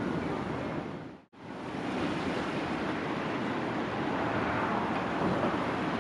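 Steady rush of strong wind, with the sound dipping briefly to silence and back about a second in where the recording is cut.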